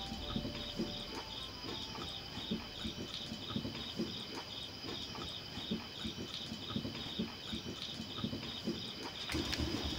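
Crickets chirping in a steady, evenly pulsed high-pitched chorus, with soft irregular crackles underneath. A louder, broader noise joins near the end.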